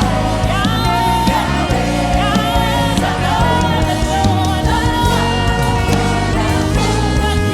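Live gospel worship song: a sung lead and backing voices over a full band with steady bass.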